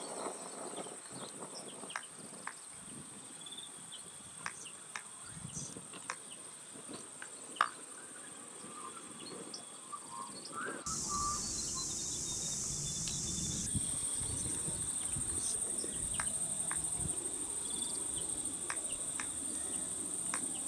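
Insects calling in a steady, high-pitched chorus with a fast pulsing rhythm, with a few small clicks. About halfway through, a low rumble joins it.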